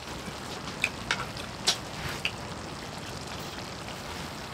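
Several short, light clinks of eating utensils against dishes, four or five in about a second and a half, over a steady hiss.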